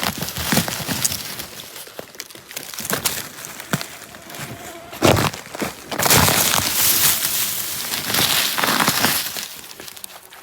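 Rustling and crackling with scattered snaps, thicker and louder from about six seconds in until near the end.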